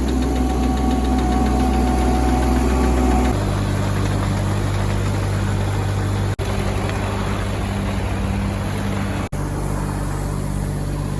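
Digger engine running steadily; its note changes and drops about three seconds in. There are two very short breaks in the sound.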